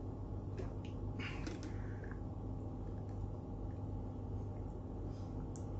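A man drinking from a plastic shaker bottle: a few faint clicks and a short soft gulping noise about a second in, over a steady low room hum.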